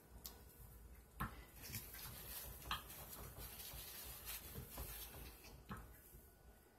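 Soft knocks and scrapes from a wooden wire soap cutter in use: a loaf of hot-process soap is slid along the board and the cutter's wire lever is pulled down through it. The knocks come irregularly, about six in all, from about a second in.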